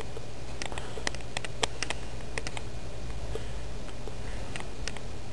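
A cluster of sharp clicks and taps, then a few more near the end, over a steady low hum and hiss.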